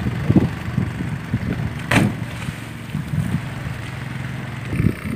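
A small engine running at idle with a low, steady hum. Irregular low wind thumps on the microphone sit over it, with one sharp knock about two seconds in.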